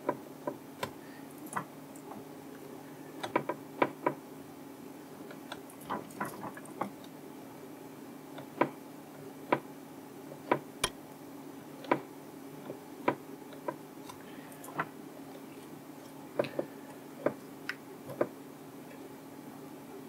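Faint, irregular light clicks and taps of a soldering iron tip and copper solder wick worked over the solder pads of a small circuit board, roughly one every second or so, over a steady low hum.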